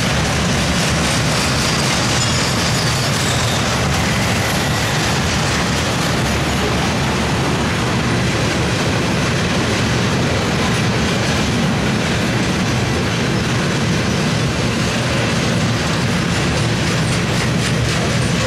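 Freight train of CSX bulkhead flatcars loaded with steel slabs rolling past close by: steel wheels running on the rails, a loud, steady noise.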